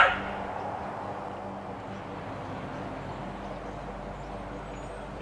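Front-loading garbage truck's diesel engine running steadily as the truck pulls forward, with a short, loud burst of noise right at the start.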